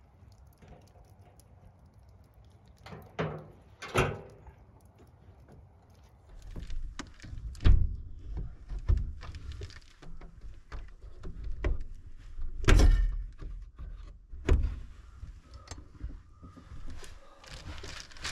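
A person moving about and settling into a truck-bed camper: a string of knocks and thumps, the heaviest about eight and thirteen seconds in, with rustling and handling rumble between them.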